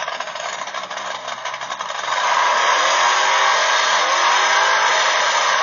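A motor vehicle's steady rushing noise, getting louder about two seconds in and holding.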